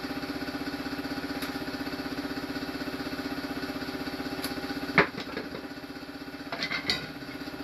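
A small motor runs steadily with a fast pulsing beat. About five seconds in there is a sharp wooden knock, followed near the end by a short clatter of loose wooden hive-frame timbers being handled.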